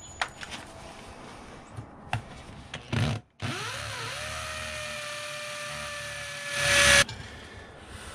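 Power drill drilling an anchor hole in the concrete step. After a few light clicks and knocks, the motor starts about three and a half seconds in with a rising whine and runs steadily. It grows louder and harsher for the last half second, then stops suddenly.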